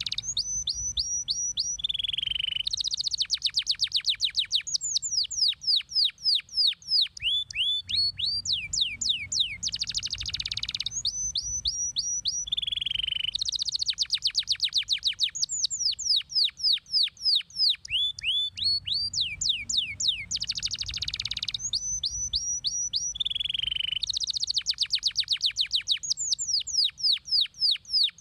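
Domestic canary singing: fast trills of rapid down-slurred notes alternating with short buzzy rattles and quick whistled notes, the same run of phrases recurring about every ten seconds.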